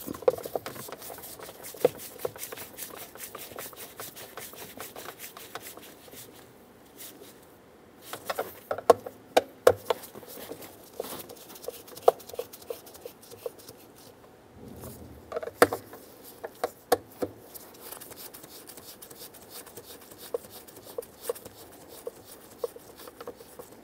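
Hand ratchet clicking in bursts as it snugs up the steering column shroud's mounting bolts, with clusters of louder clicks about a third of the way in and again past the middle.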